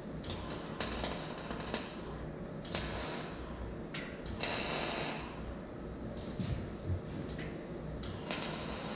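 Arc welding on a steel tube frame: four short bursts of crackling, sizzling arc, as in tack welds, over a steady low hum.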